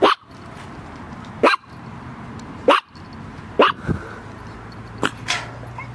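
A dog barking: about six short, sharp barks spaced a second or so apart, the last two close together.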